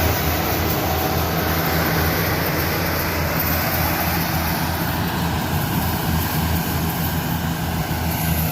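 Diesel engine of a rice combine harvester running steadily, an even drone with no change in pitch.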